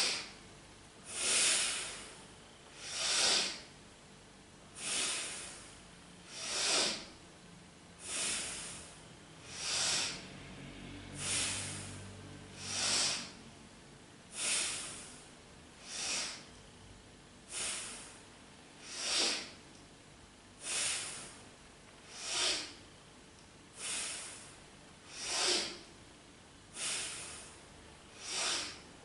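A woman breathing powerfully in and out through the nose, inhaling as each leg lifts and exhaling as it lowers, with one sharp breath about every second and a half.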